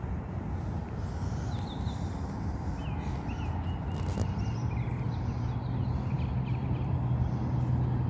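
Low rumble of a vehicle engine, its steady hum growing louder from about five seconds in, with a few short, high bird chirps over it and one sharp click near the middle.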